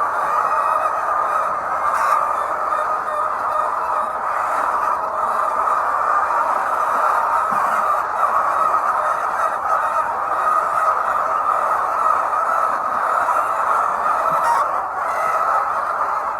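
A large flock of laying hens in a poultry house, their clucking and cackling merging into a steady, unbroken din.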